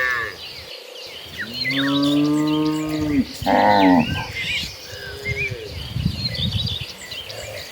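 Cattle mooing: a long, low moo about a second and a half in, then a shorter, higher moo from another animal, and a faint third call about five seconds in, with bird chirps in the background.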